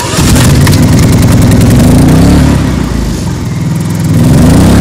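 Harbor Freight Predator 3500 inverter generator starting on its electric starter: its 212 cc single-cylinder four-stroke engine fires right at the start and runs up loud. Its pitch dips and climbs again as it settles.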